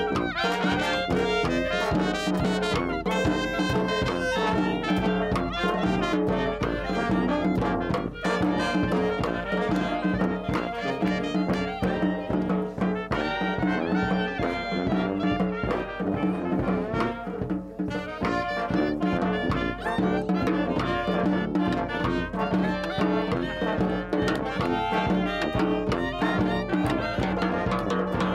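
Brass street band playing: sousaphone bass with trumpet, trombones, saxophone and clarinet over bass drum hits.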